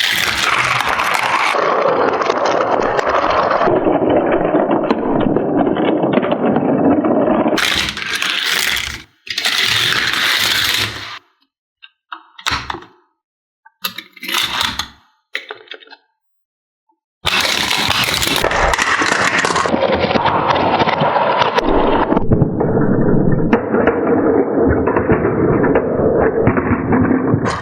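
Diecast toy cars rolling and clattering on a plastic toy track, with plastic scraping and rattling, in several long stretches and short bursts that cut off abruptly.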